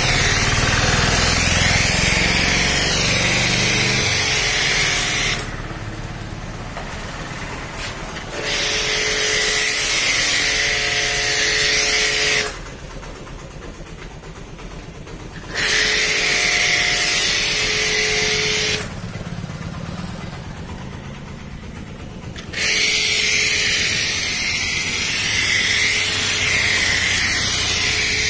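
Pressure washer spraying snow foam through a foam cannon: a loud hiss of spray with a steady motor hum under it, in four bursts of a few seconds with quieter pauses between as the trigger is released.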